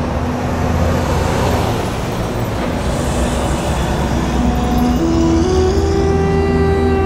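Road traffic noise, a steady low rumble of passing cars. About five seconds in, sustained musical drone notes come in over it.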